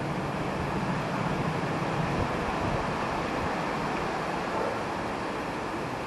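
Steady outdoor background noise in a garden: an even hiss with a low hum that fades about two seconds in.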